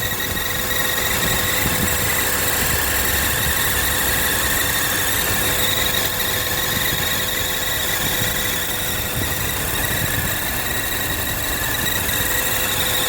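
BMW E46 inline-six engine running steadily, with a steady high-pitched whine over the rumble.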